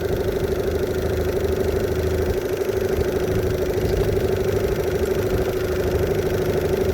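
2017 Evinrude E-TEC 15 hp H.O. two-stroke outboard running steadily with an even, fast pulsing beat. It is on a test run to see whether it still overheats after a new thermostat, gaskets and water pump kit.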